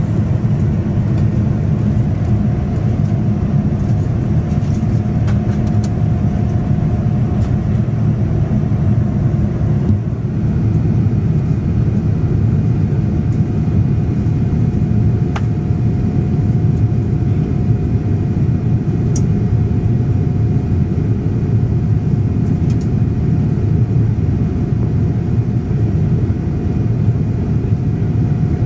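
Steady cabin noise of a Boeing 787-10 climbing after takeoff: a low, even roar from its GEnx-1B engines and the airflow past the fuselage, with a faint steady tone running through it.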